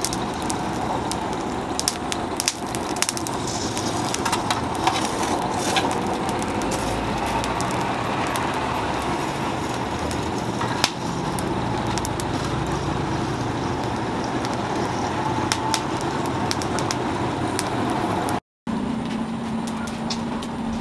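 Charcoal forge fire under forced air: a steady rushing roar with scattered crackles and pops from the burning coals. After a brief break near the end, a steady low hum joins it.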